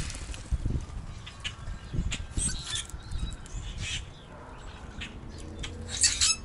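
Common grackles calling in short, harsh, scratchy bursts, the loudest near the end, with scattered light knocks between them.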